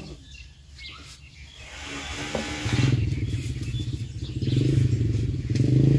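A small engine running: it comes in about two and a half seconds in as a steady low hum and grows louder.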